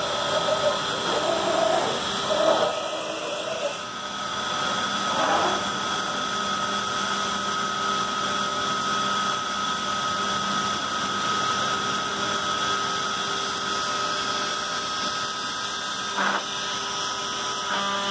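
CNC router spindle running with a steady high whine over a lower hum as the machine head repositions around the part. A short knock about sixteen seconds in.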